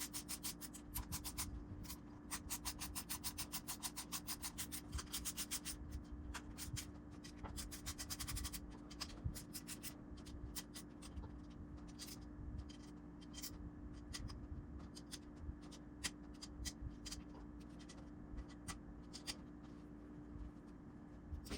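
Quick back-and-forth hand rubbing strokes, like sanding or scrubbing a part, for the first eight seconds or so, then scattered light clicks and taps. A steady low hum runs underneath.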